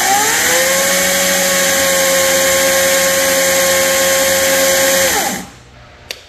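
Wild Badger CSB40U 40 V brushless cordless chainsaw running with no load: the motor finishes spinning up, holds a steady whine at full chain speed, then winds down and stops about five seconds in, with a small click near the end. The chain is being run to check that the automatic oiler slings bar oil off the chain.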